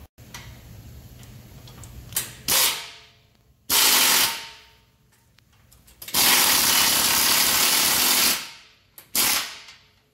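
Air ratchet running in bursts as it runs down the rear four-link suspension bolts: two short bursts about two seconds in, another near four seconds, a long run of about two seconds from around six seconds, and a brief burst near the end.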